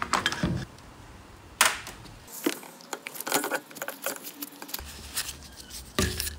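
Irregular metallic clicks, taps and knocks of tools and metal parts being handled while a motorcycle rear shock absorber is worked on, with one sharper knock about a second and a half in.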